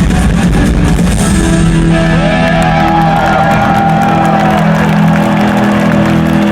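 Live rock band with electric guitars holding a sustained closing chord in a large arena, a wavering higher note riding over it for a couple of seconds, with the crowd shouting.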